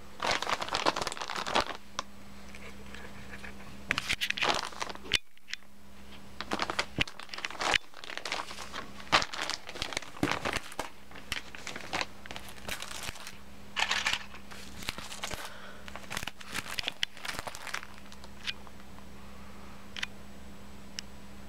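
Thin plastic carrier bag crinkling and rustling in irregular bursts as it is handled and opened and a plastic clear file is drawn out. The handling thins to a few light ticks near the end, over a steady low hum.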